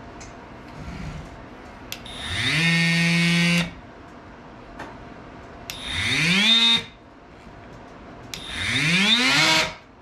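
Ryobi ONE+ HP brushless oscillating multitool (PBLMT50), its housing open, switched on three times: each time the motor spins up with a rising whine and then stops abruptly, and the first run holds at speed for about a second. This is a test run after the switch and speed controller were cleaned of drywall dust.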